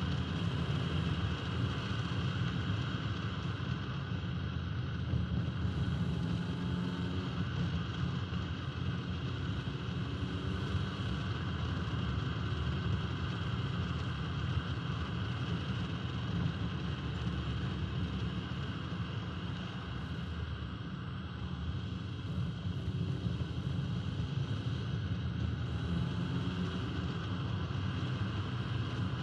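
1971 Alfa Romeo 1750 GTV's twin-cam four-cylinder engine running steadily on the move, mixed with tyre and road noise and wind buffeting a camera microphone mounted on the outside of the car.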